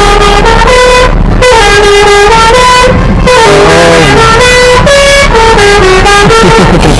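A bus's Basuri telolet horn, a multi-tone air horn, playing a loud tune. It steps from note to note every few tenths of a second.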